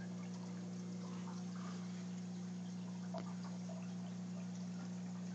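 Aquarium water bubbling and trickling, with small drips and pops, over the steady low hum of the tank's pump.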